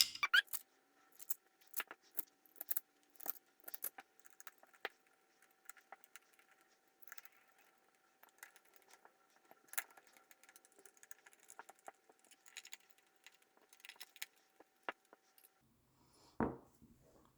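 Scattered light metallic clicks and taps of small frame screws, a hex driver and carbon-fibre plates being handled while the middle screws of a drone frame are put in and driven.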